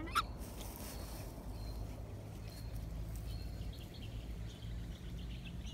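Birds chirping faintly over a steady low rumble, with one short sharp call just after the start.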